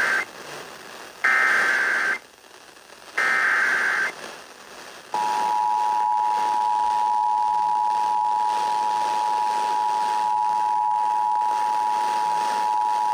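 Emergency Alert System broadcast over the radio: the end of the first and then two more raspy digital SAME header bursts about two seconds apart, encoding a severe thunderstorm warning. About five seconds in comes the EAS two-tone attention signal, a steady dual tone, over background hiss.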